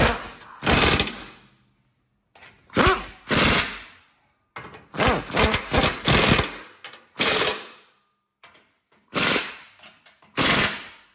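An impact gun rattling in a series of short bursts a second or two apart as it snugs up the 17 mm bolts of a metal bracket under a Toyota RAV4's transmission.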